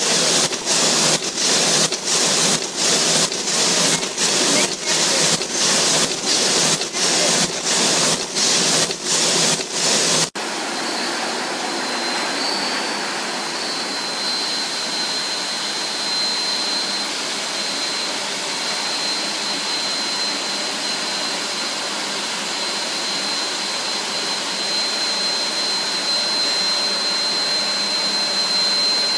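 Shunda SMD-90 paper popcorn-bucket forming machine running at about 85 buckets a minute, a loud repeating mechanical stroke about 1.4 times a second. About ten seconds in, the sound cuts to a quieter, steady machine noise with a faint high whine.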